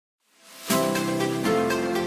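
Background music starting about half a second in, with a steady beat over sustained chords.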